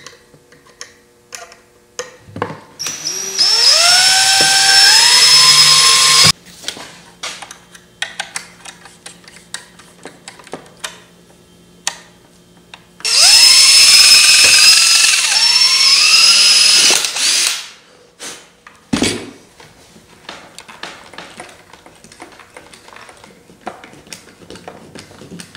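Cordless drill run twice for about four seconds each, its whine climbing in pitch as it spins up and then holding, drilling a hole through the model pickup truck's bed. Small clicks and knocks from handling the parts between the two runs.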